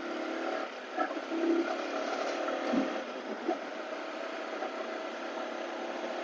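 Steady riding noise of a Yamaha R15M motorcycle in traffic, picked up by the rider's wireless microphone: a thin, even hum of engine and wind with no deep bass. A brief low thump comes a little under three seconds in.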